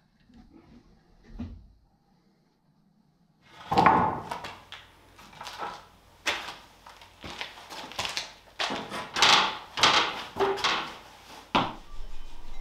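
A few faint taps, then from about four seconds in a string of irregular wooden knocks, scrapes and clatters as long white oak tongue-and-groove floorboards are lifted, slid and set down.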